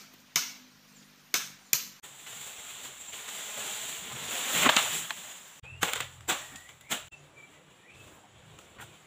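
Sharp chopping strikes into bamboo, three in the first two seconds, then a rustling, crackling crash that swells and peaks a little past the middle as a cut bamboo pole falls through the leaves, then three more chops.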